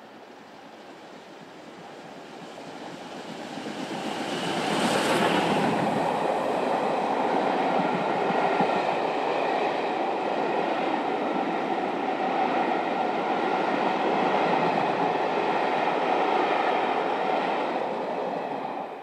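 Steam locomotive 35028 Clan Line, a rebuilt Merchant Navy class Pacific, passing at speed with a train of Pullman coaches. The sound builds over the first few seconds and peaks as the engine goes by about five seconds in. The coaches then roll past steadily until the sound falls away near the end.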